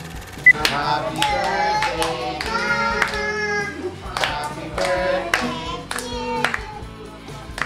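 A short electronic countdown beep, then a woman and young children singing a birthday song to a lit-candle cake, clapping along in a steady rhythm.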